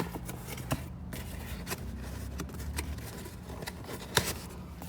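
Parts being handled: scattered clicks and rustles of packaged hardware and webbing being turned over by hand, over a faint steady low hum.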